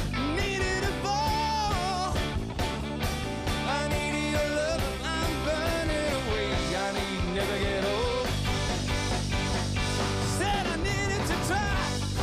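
A rock band playing live: drums, bass and acoustic and electric guitars, with a steady beat under a melody line that bends and wavers.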